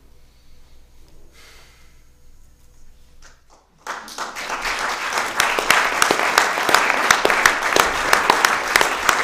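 Live theatre audience applauding: a few quiet seconds with faint rustling, then about four seconds in the clapping starts all at once, grows louder over the next second or two and holds steady.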